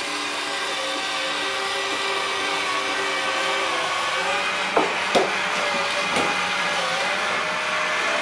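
Battery-powered toy train's small electric motor whirring steadily as it runs, with a few sharp clicks about halfway through.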